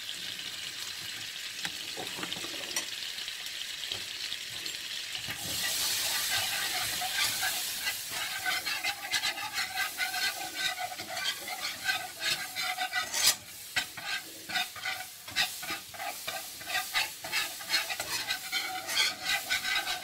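Butter and flour sizzling in a nonstick frying pan as a roux, the sizzle growing louder about five seconds in. From about eight seconds a wire whisk stirs it in rhythmic strokes, scraping on the pan, with one sharp knock partway through.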